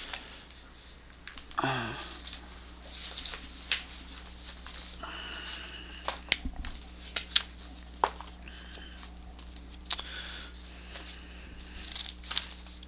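Paper and a paperback textbook being handled and moved about on a desk: rustling pages and sliding paper with scattered light clicks and knocks, over a low steady hum.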